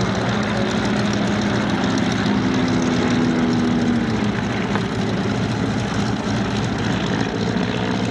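Propeller aircraft's piston engine running steadily at idle, with a low hum that fades about four seconds in.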